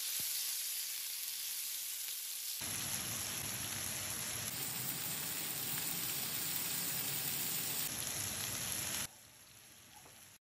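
Chicken pieces frying in olive oil in a skillet: a steady sizzle that grows fuller about two and a half seconds in, then drops away to near silence near the end.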